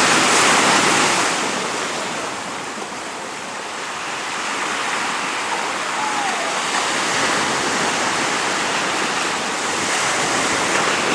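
Sea surf breaking and washing onto the shore, a steady rush that is loudest at the start, eases off a few seconds in, then builds again.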